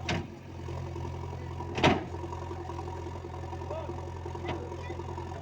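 An engine running steadily at idle with a low hum, with two sharp knocks, the louder one about two seconds in.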